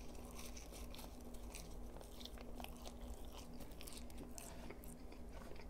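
Close-miked chewing of ketchup-dipped McDonald's french fries: faint, soft mouth sounds with many small wet clicks.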